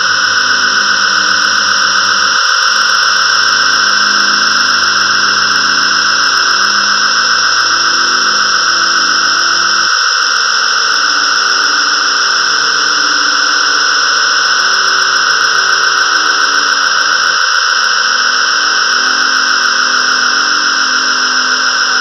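Synthesized storm soundscape from GarageBand's 'Thunderous Ambience' keyboard patch on its Storm setting: a steady high whooshing wash over held low chord notes. The chord changes about two and a half, ten and seventeen and a half seconds in.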